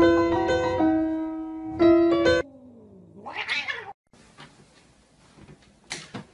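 A short run of held keyboard notes that stops abruptly, followed by a drawn-out animal yowl that falls and then rises in pitch. A few faint clicks come near the end.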